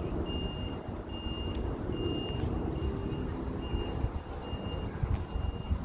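A vehicle's reversing alarm beeping steadily, one high beep a little more than once a second, over a low rumble; the beeping stops about five seconds in.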